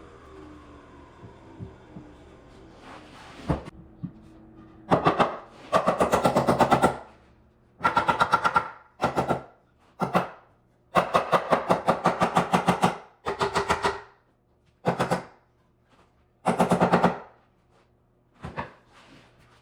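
Cordless impact driver driving fasteners into 2x4 wall framing: about nine short, loud rattling bursts of rapid hammering, some brief and some running a second or two.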